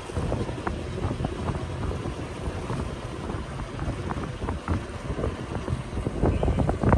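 Wind buffeting the microphone aboard a sailing boat under way, with a steady rush of moving air and water.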